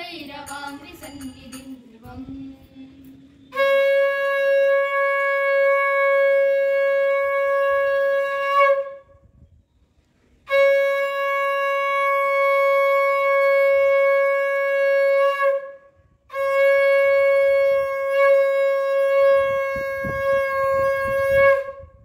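Conch shell (shankha) blown three times, each a long, steady note held for about five seconds, with short breaths between.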